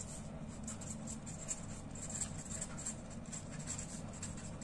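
A pen writing on paper: short, irregular scratching strokes as letters are written by hand, over a low steady hum.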